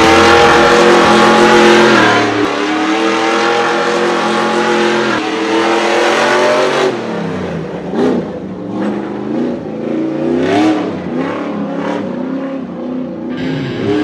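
1/7-scale RC off-road truck's motor revving hard, its pitch rising and holding for several seconds, then swinging up and down in repeated bursts about halfway through as the tyres spray gravel and dirt.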